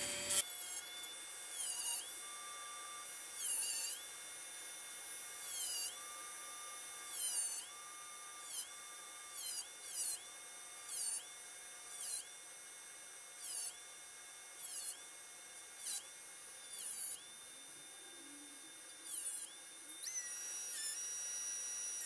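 Handheld rotary tool with an abrasive cut-off wheel running at high speed and cutting steel: a high whine that sags in pitch each time the wheel bites into the metal, about once a second, with a grinding hiss on each cut.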